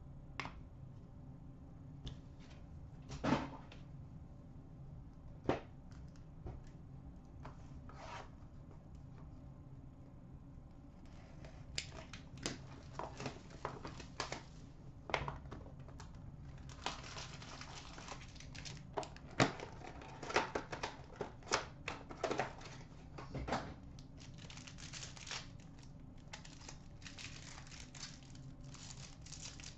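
Trading cards handled at a glass counter, with a few scattered clicks and taps as cards are set down, then, about a third of the way in, a long stretch of rapid crinkling and tearing as foil card pack wrappers are ripped open.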